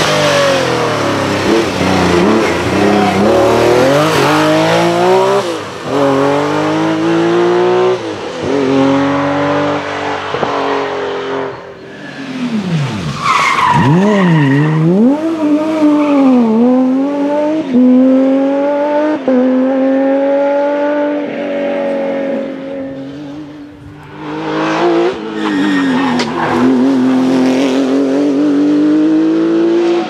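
A succession of Porsche 911 rally cars' flat-six engines driven hard. Each car revs up through the gears with the pitch climbing and dropping back at each shift, with throttle lifts and blips into corners and a brief tyre squeal about halfway through.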